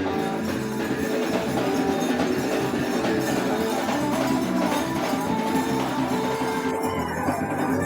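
Live instrumental music from guitar and hand percussion, with a jingling, tambourine-like rhythm over held guitar notes.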